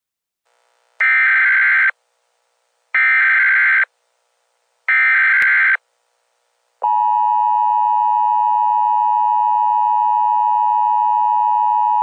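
Emergency Alert System–style weather alert ringtone: three harsh electronic data bursts of about a second each, two seconds apart, then a long steady high alert tone starting just before the seven-second mark.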